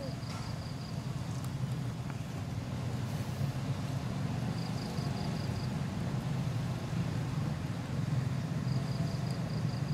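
A steady low background rumble, like distant engine or traffic noise, with three short runs of rapid, high insect chirping: at the start, about five seconds in, and near the end.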